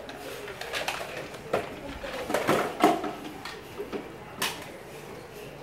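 Handling noise: a run of irregular knocks and clatters as plastic toys and the phone are moved about.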